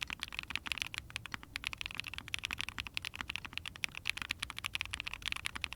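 Fast typing on a mechanical keyboard with factory-lubed KNC Green Jacket linear switches in a POM plate under GMK keycaps: a dense, continuous run of sharp keystroke clacks.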